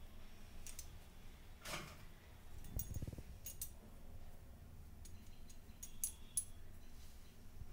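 Quiet handling sounds: scattered faint clicks and small clinks, with a soft thump about three seconds in, as hands press atta dough around the rim of an aluminium biryani pot to seal it.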